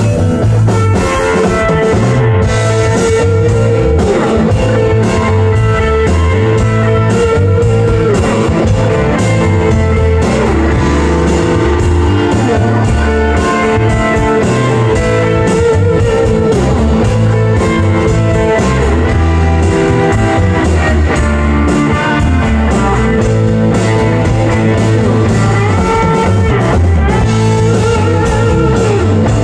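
Blues-rock band playing an instrumental passage live: two electric guitars, electric bass and a drum kit, steady and loud.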